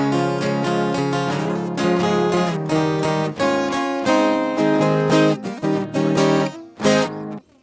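Instrumental intro of a moda sertaneja on acoustic guitars: plucked melodic runs over strummed chords, breaking off briefly near the end before the next phrase.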